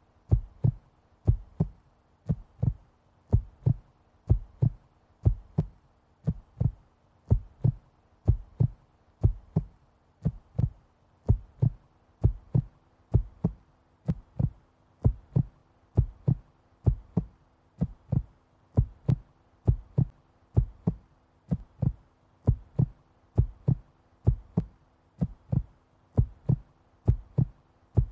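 Slow, steady heartbeat, a double thump about once a second, over a faint steady low hum.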